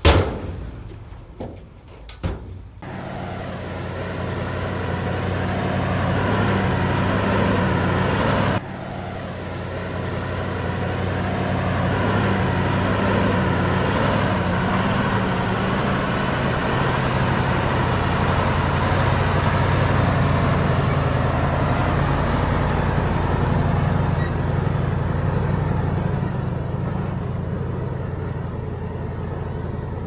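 Heavy diesel engine running steadily, growing louder over several seconds, dropping suddenly about eight and a half seconds in, then building again and easing off slightly near the end. A sharp knock at the very start and a few clicks come before the engine is heard.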